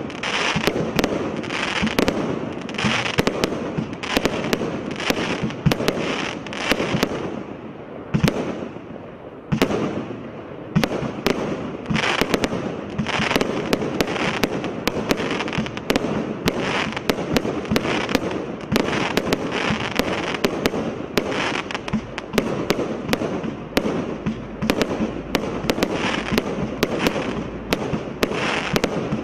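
Black Label 'Twisted Twins' 200-shot (2x100) firework barrage cake firing shot after shot. Sharp reports come at about two a second over a continuous noise of bursting stars, thinning out briefly about eight seconds in.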